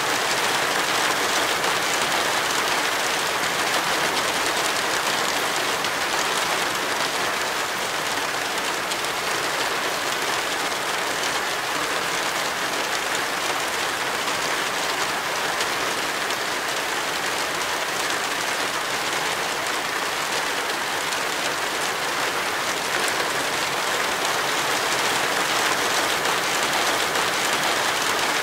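Tropical rain falling steadily, a dense, even hiss with no breaks.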